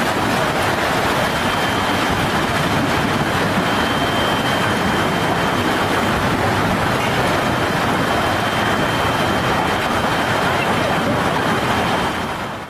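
Steady, dense rush of a severe storm, wind and heavy rain, that cuts off abruptly at the end.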